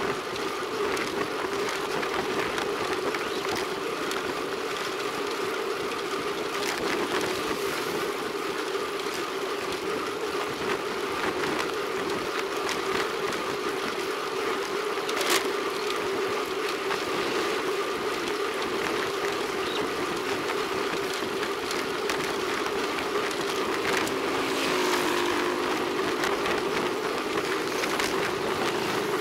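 Steady rolling noise of road bikes on a concrete road, tyre hum and wind rush on a bicycle-mounted camera's microphone, with one sharp click about halfway through. Near the end a motorcycle passes close by.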